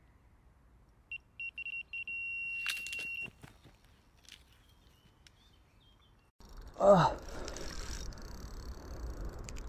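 Electronic carp bite alarm sounding a run: a few quick beeps about a second in, running together into a held tone, the sign of a fish taking line. Clicks and handling follow, then rough noise from the rod and reel being worked, with a loud falling swoop about seven seconds in.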